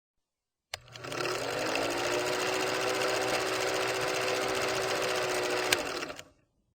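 A small motor runs steadily with a fast, even rattle after starting with a click, then fades out near the end.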